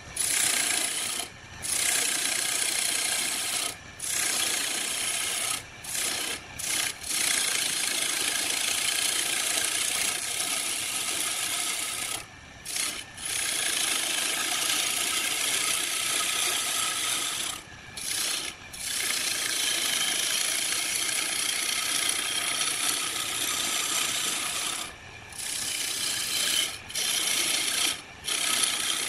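Turning chisel cutting into a wood blank spinning on a lathe: a steady hissing scrape as shavings come off, broken by several short pauses where the tool is lifted from the wood.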